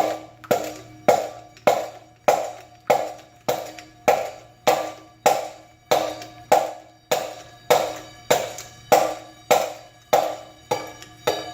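Repeated hammer strikes on a stuck metal part of a ring fan's motor, in a steady rhythm a little under two blows a second, each blow ringing briefly: the part is being knocked at to free it and is not yet coming loose.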